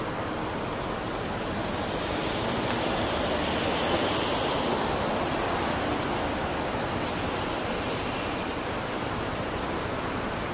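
Steady rushing noise of city road traffic around a car stopped at an intersection, picked up by a camera mounted on the car's roof, swelling slightly about four seconds in.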